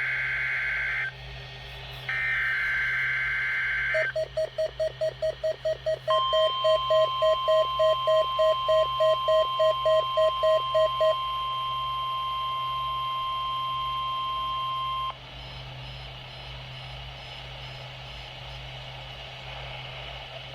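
NOAA Weather Radio emergency alert sequence. Two screeching bursts of SAME digital header data come first. Then a lower beep pulses about three times a second, and from about 6 s the steady 1050 Hz weather radio warning alarm tone sounds with it, cutting off about 15 s in and leaving faint radio hiss.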